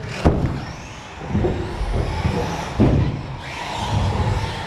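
Radio-controlled model cars running on a race track, their motors whining up and down in pitch as they pass, with a sharp knock just after the start.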